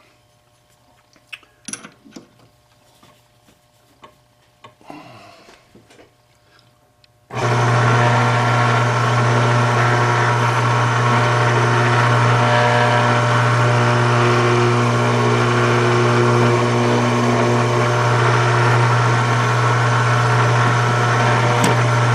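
A few light clicks and taps of small metal tooling being handled. Then, about seven seconds in, the electric motor of a homemade clock-plate rebushing machine starts suddenly and runs steadily with a strong hum, spinning a number 3 cutter that bores out the worn pivot hole in the brass clock plate.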